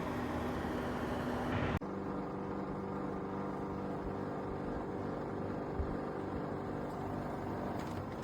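Comfee MDDPE-50DEN7 dehumidifier running with a steady hum. About two seconds in, the sound breaks off abruptly and carries on with less hiss.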